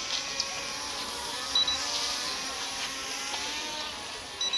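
Small toy drone's propellers whirring in flight, the pitch wavering as the motors speed up and slow down, with a short double beep twice.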